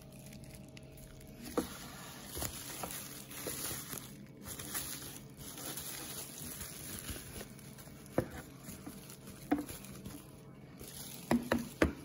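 Plastic bubble wrap rustling and crinkling as a cordless-vacuum battery is unwrapped by hand, with a few sharp knocks in the second half.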